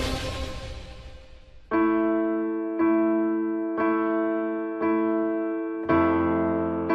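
Background music: a busy passage fades away, then keyboard chords are struck about once a second, each ringing on and fading.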